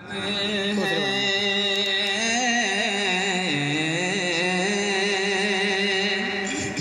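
A man singing a long wordless melodic line through a microphone and loudspeakers, his wavering voice gliding over a steady held drone; it ends near the close.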